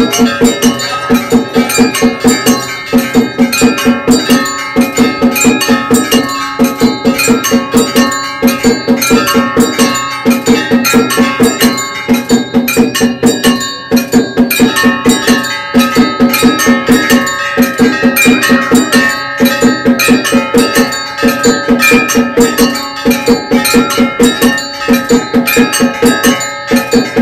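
Bells ringing over and over with percussion in a fast, steady beat, the rhythmic bell-and-drum music of a Hindu temple.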